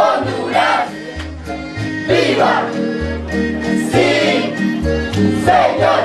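Folk dance music with a singing voice over held instrumental notes and a bass line that steps from note to note.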